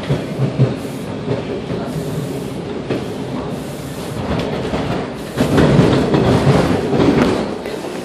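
TTC Bombardier T1 subway car running on the rails, heard from inside the car: a steady rumble of wheels on track. It grows louder with a run of clacks for about two seconds past the middle.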